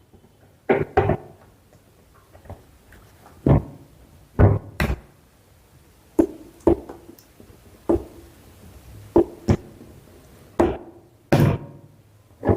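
A PC power supply's cable connectors being handled and plugged into a motherboard: about a dozen sharp knocks and clicks at irregular intervals.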